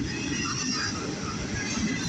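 Cars of a CSX intermodal freight train rolling past: a steady rumble of steel wheels on rail, with faint high squealing tones above it.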